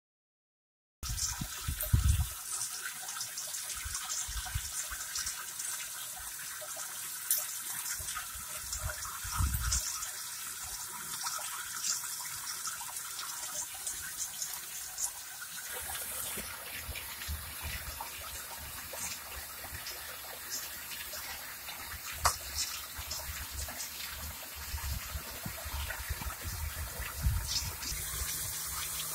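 Water churning and splashing inside a vortex fountain's clear column, kept swirling by a 12 V pump: a steady rushing of water that starts about a second in, with occasional low thumps.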